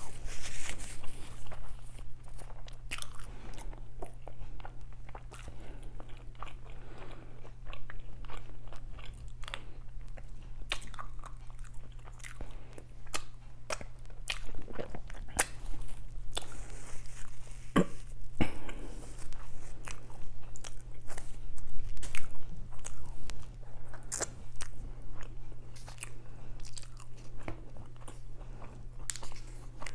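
A person eating close to the microphone: chewing and biting, with many short, irregular crisp clicks and crunches. A steady low hum runs underneath.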